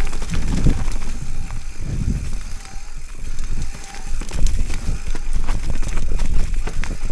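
Giant Trance full-suspension mountain bike riding down a rough trail: irregular clattering and knocking of the bike over the ground, over a heavy rumble of wind buffeting the microphone that swells and eases.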